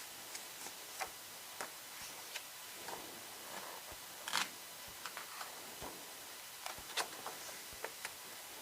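Light scattered clicks and soft paper rustles from an album photo book being handled and its pages turned, with one louder rustle about four and a half seconds in.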